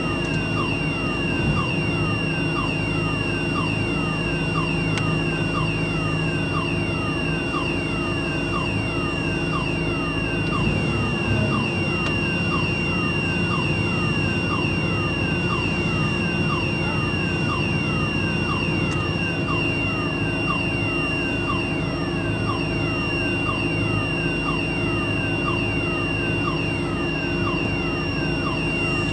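Electronic warning alarm: a steady high tone with a short falling chirp repeating about twice a second, over a steady low engine hum.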